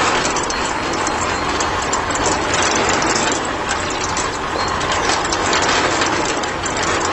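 Miniature concrete mixer running: a small electric motor turns the metal-can drum through its gears, with a steady clattering rattle of the contents tumbling inside.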